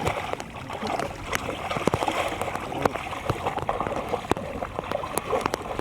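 Shallow water splashing and sloshing, with frequent small sharp splashes and drips.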